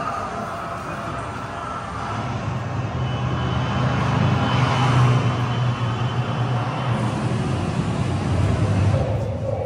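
A motor vehicle passing on a street, its engine hum and tyre noise growing louder up to about halfway through.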